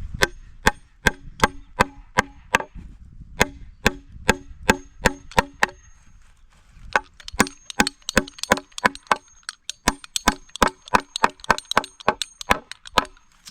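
Hammer driving nails into wooden boards: a steady run of sharp strikes, about three a second, then a short pause and a faster run of strikes, some with a light metallic ring.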